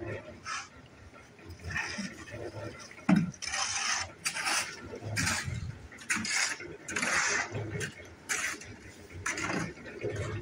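Footsteps scuffing on stone paver steps, a gritty step roughly every second, with one sharper knock about three seconds in.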